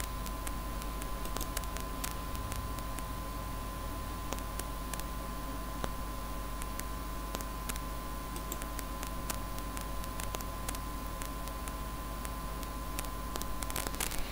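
Faint, scattered computer mouse and keyboard clicks over a steady low electrical hum and a thin steady whine.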